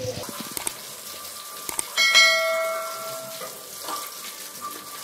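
A mouse-click sound effect and then a bell 'ding' from a subscribe-button animation, about two seconds in. The ding rings out and fades over about a second and a half.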